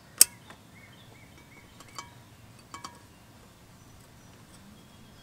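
Metal-on-metal clinks of a screwdriver and pliers prying at the locking washer on a boat propeller's nut: one sharp ringing clink just after the start, then a few lighter clicks about two to three seconds in.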